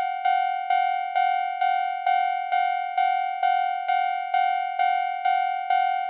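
Japanese railroad crossing alarm bell ringing its "kan-kan" warning: a clear metallic tone struck evenly about twice a second, each stroke ringing on into the next. It is the signal that a train is approaching and the crossing is closing.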